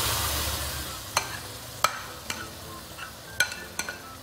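Tomato puree hitting the hot fried masala in a kadhai: a sizzle that dies down within about a second. After that, a metal ladle clinks sharply about five times as it stirs and scrapes.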